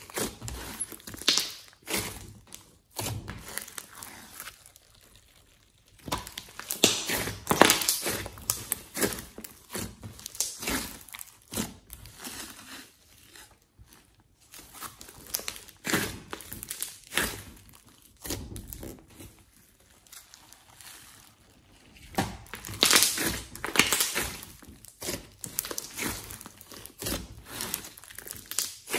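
A large mass of slime squeezed, folded and pressed by hand, giving irregular sticky crackling and squelching clicks that come in clusters, loudest about a quarter of the way in and again near three-quarters through.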